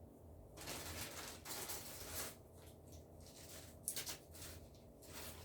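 Rustling and scraping as potted plants and their leaves are handled and moved, with a couple of sharp clicks about four seconds in.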